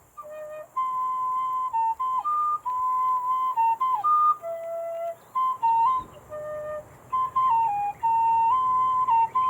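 High D tin whistle with a CPVC body and a tunable 3D-printed fipple mouthpiece playing a melody: clear single notes, mostly held, stepping up and down with short gaps between phrases.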